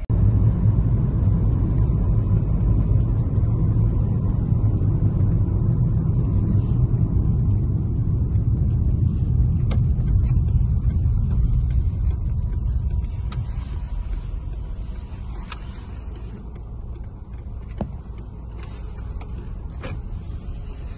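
Engine and road rumble of a moving car heard from inside the cabin, steady and low, becoming quieter about two-thirds of the way through, with a few faint clicks.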